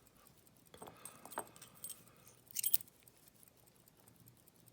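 Keys jangling and clinking against a padlock as the lock and its key are handled: a few light clicks, then a brighter jingle about two and a half seconds in.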